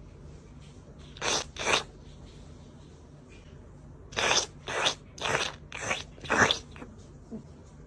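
Short crunching noises: two about a second in, then a run of six coming about twice a second.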